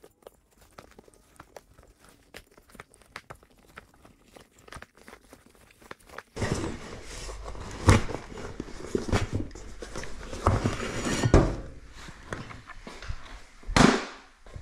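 Hands working a rubber ATV tire and inner tube on a steel wheel rim: faint rubbing and clicks at first, then from about six seconds in louder scraping and handling noise broken by several thumps, the loudest near the end.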